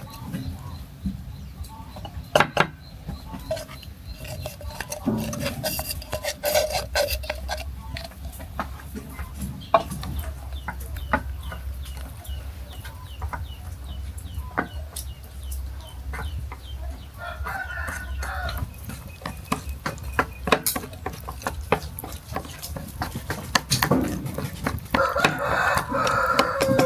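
Chickens clucking and a rooster crowing twice in the second half, among scattered sharp clicks and knocks.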